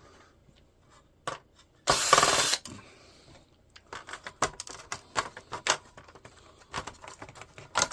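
Small clicks and ticks of a laptop's plastic case and parts being handled and worked apart, with one louder rasping burst lasting under a second about two seconds in.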